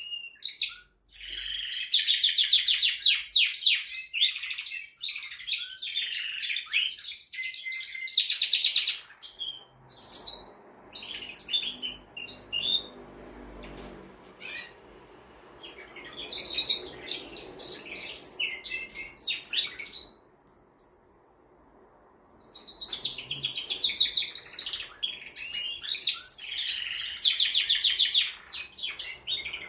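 Male domestic canary singing in long phrases of fast trills and rolls, broken by short pauses, with a silent gap of about two seconds about two-thirds of the way through.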